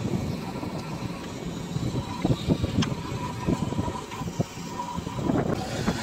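Diesel engines of a JCB 3DX backhoe loader and a Massey Ferguson 241 DI tractor running steadily, with scattered short knocks and clatter.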